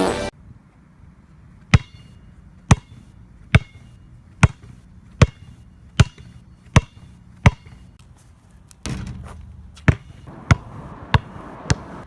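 A series of sharp, loud thuds at an even pace of about one every 0.8 seconds. About nine seconds in there is a short rush of noise, then four more thuds coming faster.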